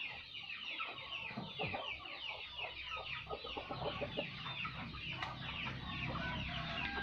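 A flock of chickens clucking and cheeping without a break, many short falling calls overlapping one another.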